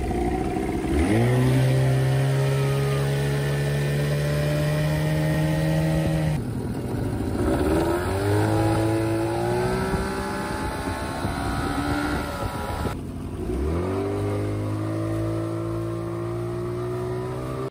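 Outboard motors driving small boats under way, in three short takes split by abrupt cuts. In each take the engine note climbs as the throttle opens, then holds steady, with water noise underneath. The first is a 30-horsepower outboard, the second a Mercury and the third a 25-horsepower outboard.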